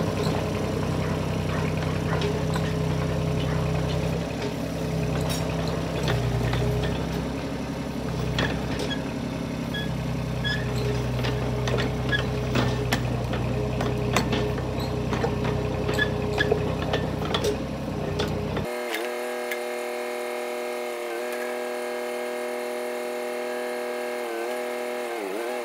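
Yanmar B12 mini excavator's diesel engine running, with frequent clanks and rattles as its rubber tracks turn the machine. After about 18 seconds the sound becomes a thinner, steady engine tone that sags briefly near the end as the digging loads it.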